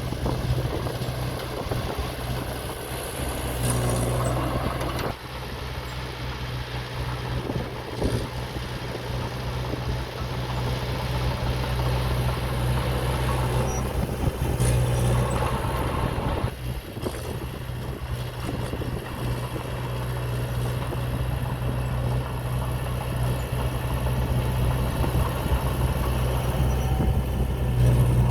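Diesel engine of heavy earthmoving equipment running throughout, a steady low hum that swells louder and eases back several times as the load changes, with a few short knocks.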